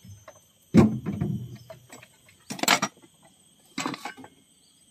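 Work on an excavator's engine bay: a heavy metallic knock about a second in, then two short clattering scrapes, over a steady high insect buzz.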